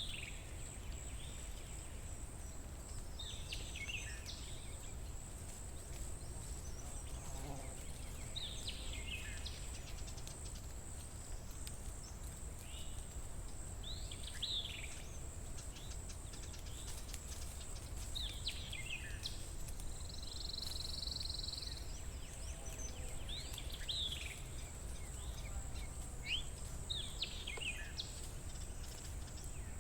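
A songbird singing short phrases of quick, falling notes every few seconds, over a steady high-pitched drone and a low rumble of forest ambience.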